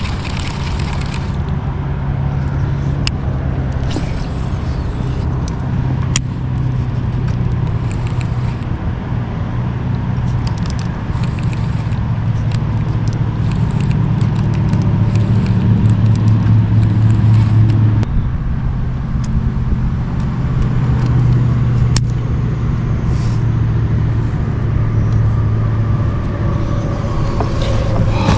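A steady low motor hum with a slightly wavering pitch, growing a little louder about halfway through, with a few sharp clicks.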